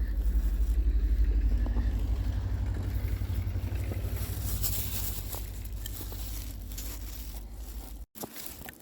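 Wind buffeting the microphone with a fluttering low rumble, over the crunch and scrape of footsteps in deep snow. The sound cuts out abruptly about eight seconds in.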